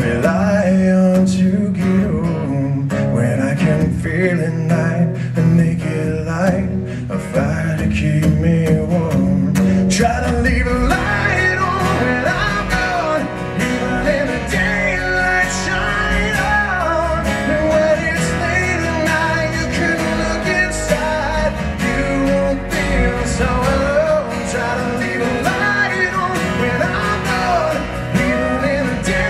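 Live rock band performance: an acoustic guitar strummed over band backing, with a man singing lead. His voice comes through more strongly from about ten seconds in.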